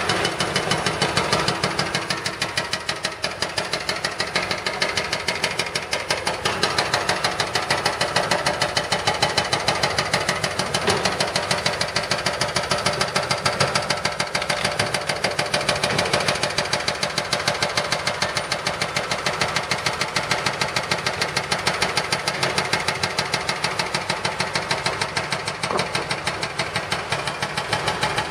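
Excavator-mounted hydraulic breaker hammering at pavement in a rapid, regular pounding of several blows a second, over diesel construction engines running.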